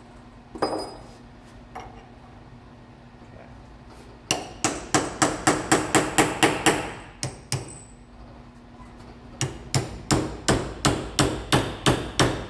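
Two quick runs of hammer blows on steel, about five a second with a pause between, driving out the old seal from an A833 transmission bearing retainer clamped in a vise. A single light metal clink comes just before the first run.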